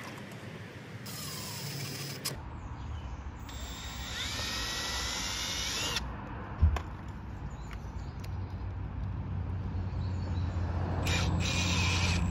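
Cordless drill-driver driving screws into plastic van bumper trim, in three short runs of motor whine, the middle one rising in pitch as the screw bites. A single sharp knock about six and a half seconds in.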